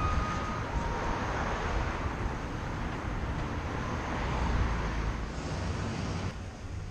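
Outdoor city ambience: a steady rush of road traffic noise mixed with wind on the microphone, swelling about four to five seconds in and dropping off sharply near the end.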